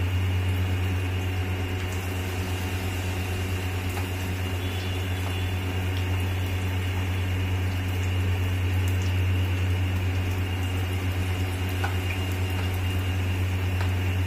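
Batata vadas deep-frying in hot oil, a steady sizzle, over a steady low hum.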